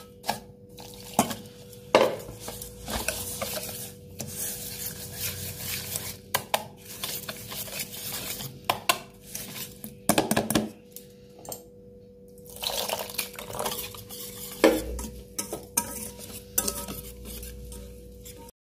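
Semolina and sugar batter being stirred by hand in a bowl with a little water, with irregular scraping and repeated knocks against the bowl. The sound cuts off suddenly near the end.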